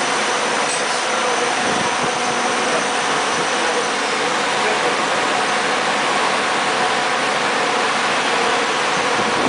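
Electric motor on an industrial special-purpose machine running continuously: a steady whirring hiss with a faint even hum underneath.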